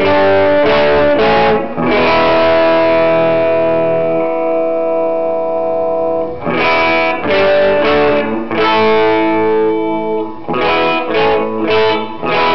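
Gibson Les Paul electric guitar playing chords through a DeArmond R15T tube amplifier with two 6V6 power tubes and a 12-inch speaker, the amp's volume at about 2.5 and tone around 7. Short bursts of quick strums are broken up by chords left to ring; the first rings for about four seconds and the next, about halfway through, for nearly two.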